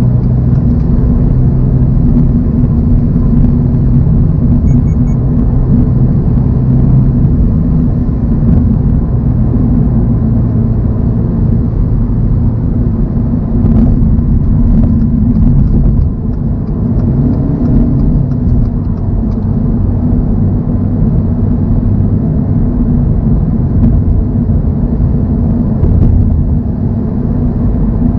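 2024 Toyota GR86's 2.4-litre flat-four engine running at steady cruising speed, with tyre and road noise, as a low, even drone that eases briefly about 16 seconds in.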